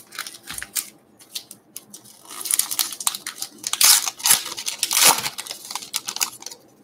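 Trading card pack being handled and torn open: light rustling and clicks at first, then from about two seconds in a stretch of loud crinkling and tearing of the wrapper that stops near the end.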